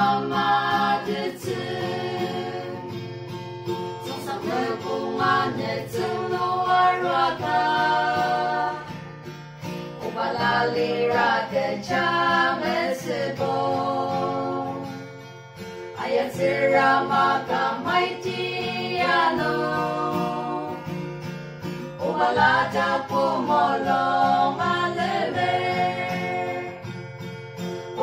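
Four women singing a song together to a strummed Yamaha acoustic guitar. The singing comes in phrases of about six seconds, each with a short breath-pause between them.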